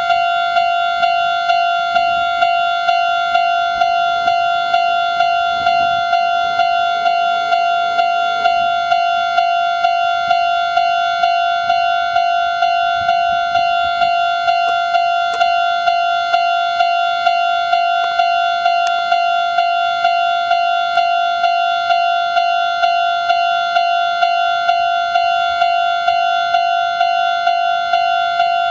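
Japanese railway level crossing's electronic warning bell ringing at an even beat of about two strikes a second, each strike the same single tone with overtones. The crossing is sounding its warning that a train is approaching.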